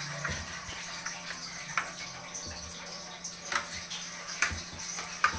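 Spoon stirring a thin curd-and-gram-flour batter in a steel saucepan, clinking against the pot a few times. Under it runs a steady rush of water filling a drum from an RO water filter.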